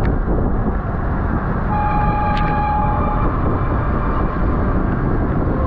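Wind buffeting the microphone of a camera on a bicycle being ridden, a loud steady rumble. About two seconds in, a pitched tone with several overtones sounds for about a second and a half, and another begins right at the end.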